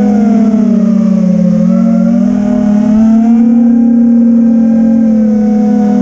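FPV racing quadcopter's electric motors and propellers whining loudly, heard from the camera on board, the pitch sagging and rising with the throttle as it flies.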